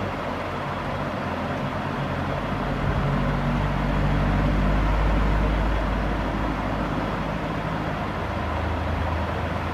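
Low, steady mechanical rumble with a deep hum, swelling about halfway through and easing off again.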